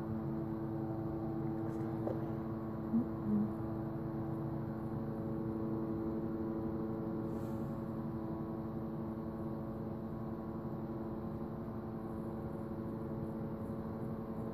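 Steady humming drone of several held tones, like a distant airplane engine that stays in one place; its source is unidentified. Two brief faint blips about three seconds in.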